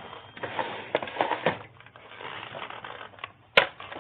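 Small hardware parts being handled and rummaged through: a run of light clicks and rattles, with one sharp click about three and a half seconds in.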